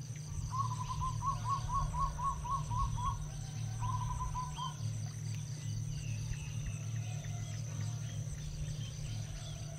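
Evening countryside ambience: a steady high-pitched insect drone over a low steady hum, with a creature calling a fast run of about ten short, rising notes, about four a second, then a shorter run of about five a second later. Faint scattered chirps throughout.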